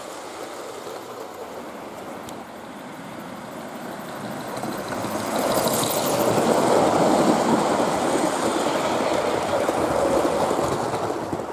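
Gauge 1 model train running past close by: the steady rumble of its wheels on the track. It grows much louder about five seconds in as the train passes, then eases off near the end.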